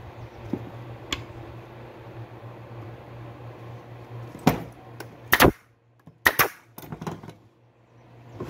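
A steady low hum that stops about six seconds in, with a handful of sharp knocks and clacks on the wooden workbench in its second half, the loudest a double crack about five seconds in.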